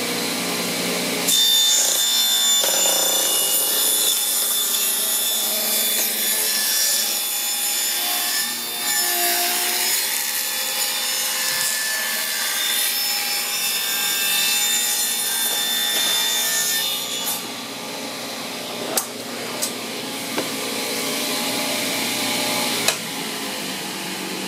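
Ridgid table saw ripping the rough edge off a pallet board, the blade cutting the wood steadily for most of the time. About two-thirds through the sound eases to the saw running with less load, with a few sharp knocks near the end.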